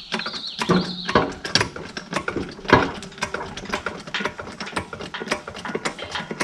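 A cheap hand ratchet clicking rapidly in short back-and-forth strokes as a boat trailer wheel is changed, with a brief squeak about a second in.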